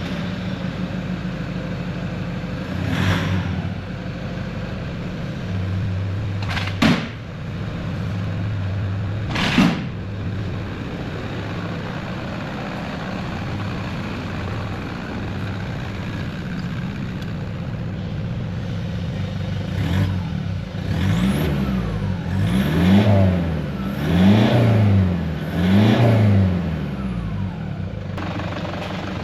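Toyota Prado's 1KD 3.0-litre four-cylinder turbo-diesel idling through a new 3-inch Redback turboback exhaust with high-flow cat and centre muffler. It is blipped sharply three times, then near the end revved up and back down four times in quick succession.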